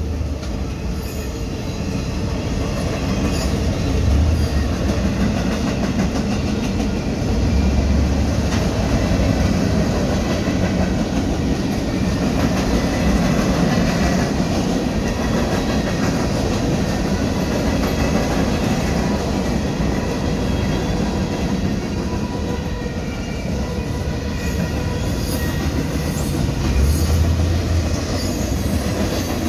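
Freight cars of a Union Pacific manifest train rolling steadily past, their steel wheels running on the rails.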